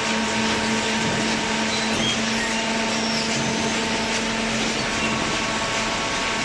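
Hydraulic cardboard baler running: a steady mechanical noise with a constant hum from its pump and motor, the hum weakening about five seconds in.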